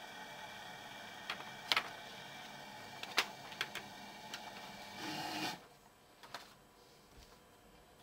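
Light clicks and taps of hands handling wires and a small nylon connector clamped in a bench vice. They sound over a steady hum that cuts out about five and a half seconds in, just after a short hiss.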